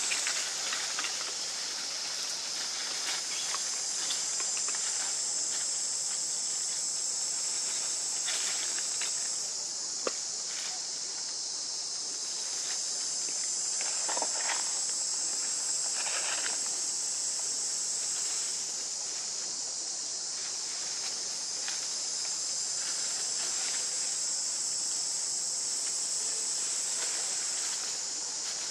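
Steady high-pitched drone of an insect chorus, with occasional brief rustles and clicks of leaves and branches.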